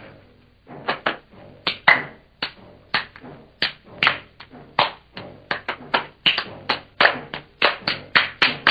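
Two people's hands clapping in a rhythmic hand-clapping game, claps of their own hands alternating with palm-to-palm slaps. The claps start about a second in at roughly two a second and quicken near the end.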